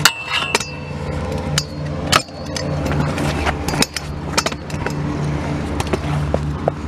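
Stunt scooter ridden on a concrete skate park: a series of sharp knocks and clacks from the deck and wheels striking and landing on the concrete, the loudest near the start and about two seconds in, over a steady low drone.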